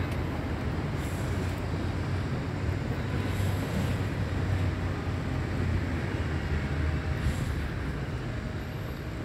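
Steady low rumble of outdoor background noise, with no clear cat calls.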